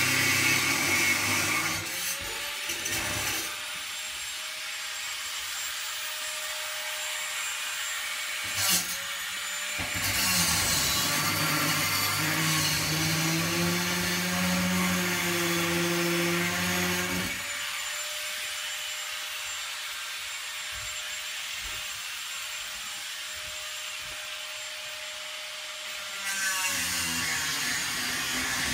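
Angle grinder running steadily with a high whine and hiss. About ten seconds in its pitch drops and it gets louder for some seven seconds, then it returns to the steady whine.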